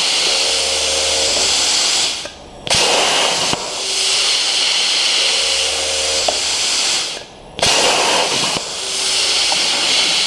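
CNC plasma torch cutting 18 gauge sheet steel at 45 amps: a loud, steady hiss of the plasma arc. Twice the arc cuts out for about half a second and then restarts, as the torch finishes one cut and pierces for the next.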